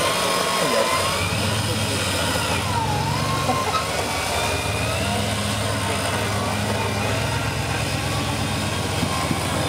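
Off-road vehicle engine running steadily at low revs, with faint voices in the background.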